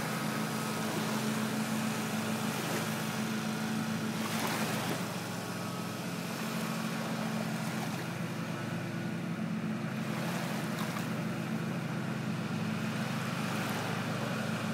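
Mini Rio radio-controlled boat's small electric motor running steadily as it speeds across the lake, a constant low hum. There is a brief whoosh about four seconds in.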